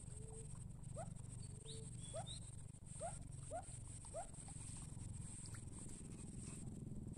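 Animal chirps: about five short rising calls in a few seconds, over a steady high-pitched hum and a faint low rumble.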